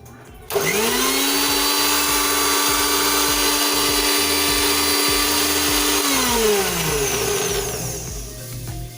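Electric mixer grinder blending mayonnaise: the motor spins up about half a second in, runs with a steady whine for about five seconds, then is switched off and winds down with falling pitch over the next two seconds.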